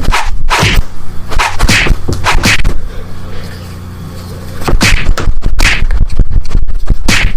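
Quick swishing strokes in two rapid flurries separated by a lull of about a second and a half, over a steady low hum.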